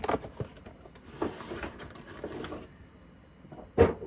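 Cardboard toy box being handled: a few taps and knocks, rustling and sliding in the middle, then one sharp knock near the end.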